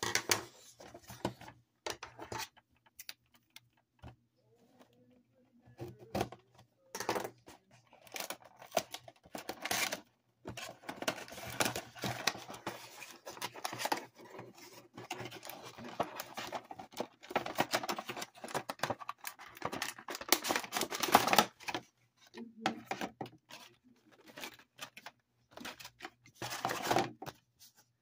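Cardboard action-figure box and its card and plastic packaging being handled and opened by hand: irregular scraping, sliding, rustling and light taps. A few scattered clicks at first, then a long busy stretch of handling in the middle, and another short burst near the end.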